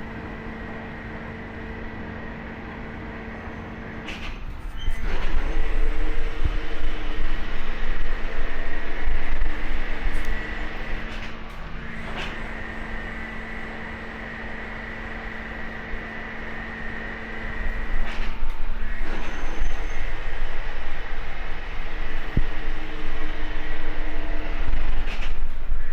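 Hydraulic waste-cutting machine running: a steady hydraulic pump hum and whine over a low rumble, which becomes much louder and rougher for several seconds about five seconds in and again from about eighteen seconds on, with a few sharp knocks.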